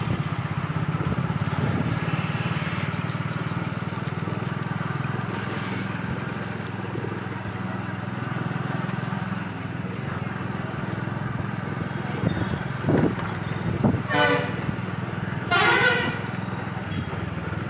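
Bus engines running close by with a steady low drone, and a couple of short horn toots about three-quarters of the way in.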